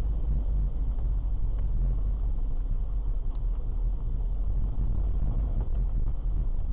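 Steady low rumble of a car driving, heard from inside the cabin through a dashcam's microphone: engine and tyre noise with a few faint ticks.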